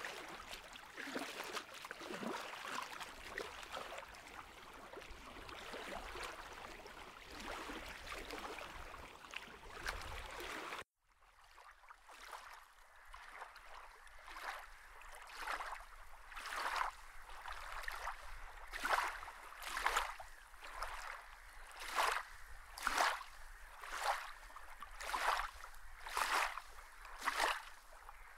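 Running water as a steady wash, which cuts off suddenly about eleven seconds in; then a swishing water sound that repeats about once a second and grows louder.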